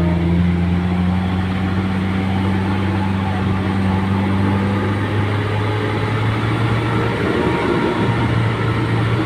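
A motor vehicle's engine running steadily under way; about halfway through its note changes, the higher tone dropping out and a lower one rising.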